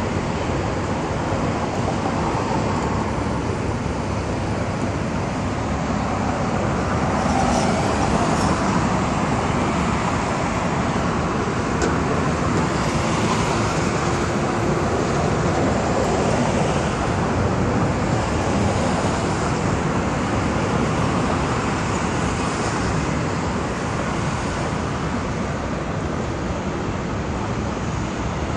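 Steady road traffic noise from cars passing on a busy highway: a continuous rush that swells and eases a little as vehicles go by.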